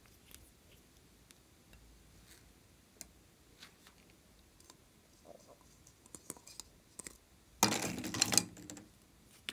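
Light plastic clicks and taps from small makeup and glitter containers being handled and opened. Near the end comes about a second of loud, dense rattling from a plastic glitter tube being worked over the plate.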